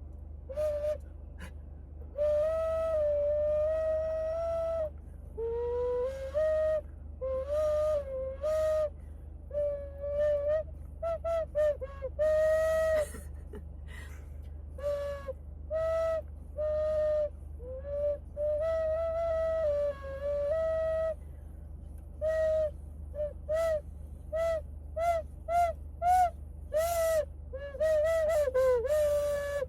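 A simple tune of high, flute-like notes, some held and some short, with a few slides in pitch, over a steady low hum.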